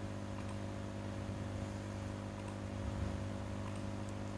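Steady electrical hum from the recording setup, with a few faint, scattered clicks of a computer mouse.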